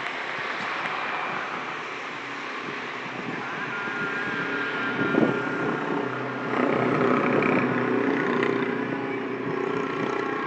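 Road traffic: motorcycles and cars passing, with engine tones coming in a few seconds in and the loudest vehicle going by from about six and a half seconds in.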